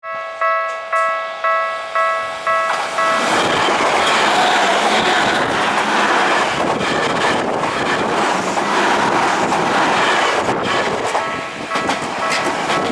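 Japanese level-crossing warning bell ringing about twice a second. About three seconds in it is drowned out by a Tokyu 5050-series electric train passing through the crossing, with loud wheel-on-rail noise. The crossing bell is heard again near the end as the train noise drops.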